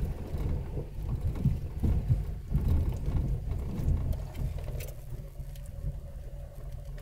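4x4 vehicle crawling over a rough trail: a low engine rumble with uneven bumps and knocks from the body and suspension. A faint steady hum comes in about four seconds in.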